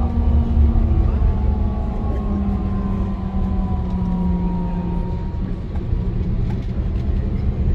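Steady low rumble of a moving vehicle, with a faint whine that slowly drops in pitch through the middle.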